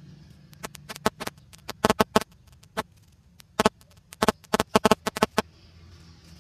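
Thin plastic drinking cup crackling as it is gripped and turned in the hand: a run of sharp, irregular clicks that stops about a second before the end.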